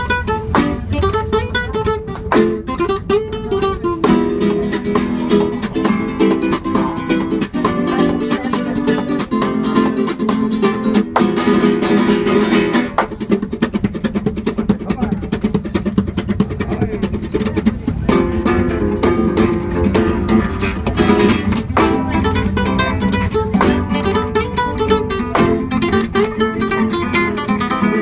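Spanish guitar played flamenco-style: fast picked runs of notes broken now and then by quick strummed chords, over the low rumble of the moving tram.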